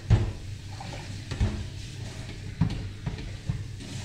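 Plastic containers knocking and clattering as they are handled at a kitchen sink: about five sharp knocks spread unevenly, the loudest just after the start, over a steady low hum.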